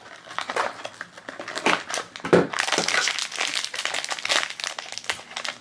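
Clear plastic bag crinkling and crackling in the hands as a small vinyl keychain is unwrapped from it, with one sharper, louder crackle about two and a half seconds in.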